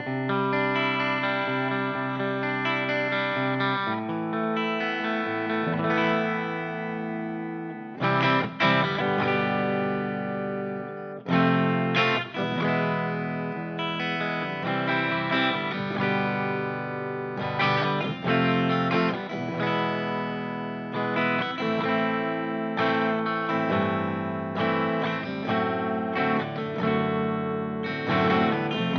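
Donner Hush X electric travel guitar played through a Donner Arena 2000 amp modeler on a clean patch, from the bridge pickup with the tone rolled a little off. Ringing chords and notes, with sharper struck attacks about eight and twelve seconds in, and a top end cut off by the cab simulator's low-pass filter.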